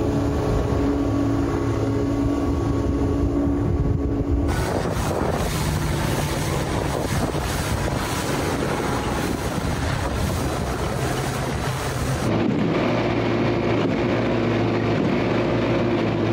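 Outboard motors running steadily at speed, with wind and water noise on the microphone. The sound changes abruptly about four seconds in and again near the end; in the last few seconds it is twin Yamaha 25 outboards on a small aluminum boat heard from on board, with wind on the mic.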